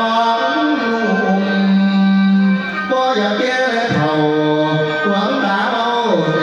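Music with a sung melody: long held notes that slide up and down between pitches over an accompaniment.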